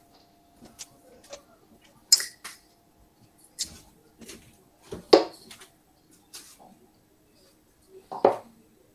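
Darts play: a string of short, sharp taps and light metallic clinks at uneven intervals, the loudest about five seconds in and another just past eight seconds.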